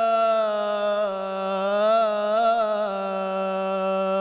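A male munshid chanting an Islamic devotional hymn (inshad), holding one long drawn-out note on the last syllable of the line, with small ornamental turns in pitch partway through.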